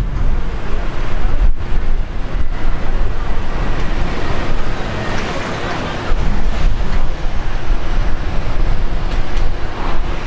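Wind buffeting and road noise from a moving car, loud and uneven, with a slight lull shortly before six seconds in.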